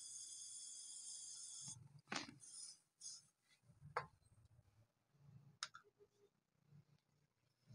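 An aerosol can of Bosny metallic gold spray paint hisses steadily as paint is sprayed into a small cup, and the hiss cuts off about two seconds in. Then there are three faint, sharp clicks a second or two apart.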